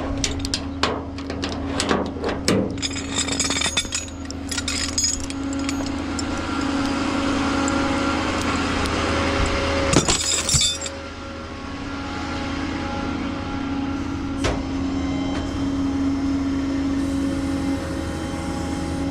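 Metal clanks and clinks of tools or gear being handled and put away, a quick run of them over the first few seconds and single knocks later on, over the steady hum of an idling truck engine.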